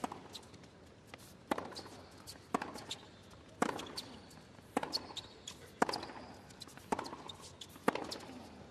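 Tennis ball struck back and forth by rackets in a baseline rally: about eight sharp pocks, roughly one a second.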